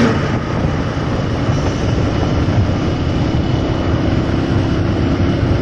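Steady rumble of wind and road noise from a moving motorcycle, with its engine running underneath. A faint steady hum joins about three seconds in.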